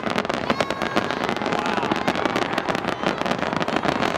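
Fireworks finale barrage: many aerial shells bursting in rapid, overlapping succession, a dense run of bangs and crackles with no let-up.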